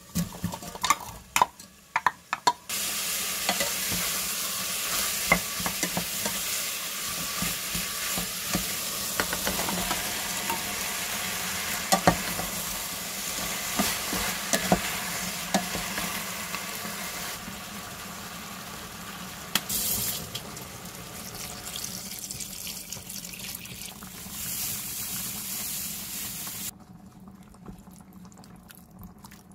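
Diced meat and onion sizzling in hot oil in a stainless steel pot, stirred with a wooden spoon that clicks against the pot. It starts with a few clacks as the food goes in, the sizzle begins about three seconds in, and it stops suddenly near the end.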